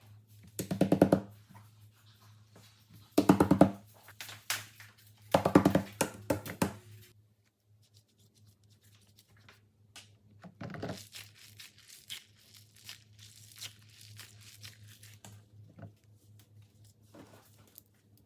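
Three loud rasping, tearing sounds about two and a half seconds apart, followed after a pause by softer crinkling and small clicks as fidget toys and their packaging are handled.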